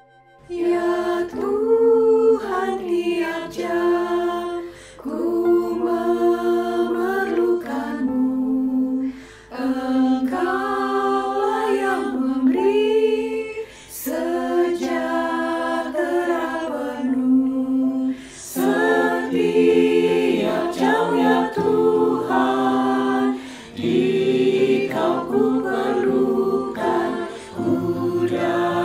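Women's choir singing a hymn in unison and harmony, unaccompanied, in phrases with short breaks between them; men's lower voices join near the end.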